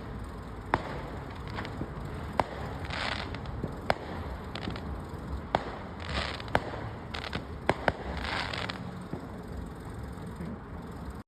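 Fireworks going off: about ten sharp, scattered bangs, with several short bursts of crackling in between.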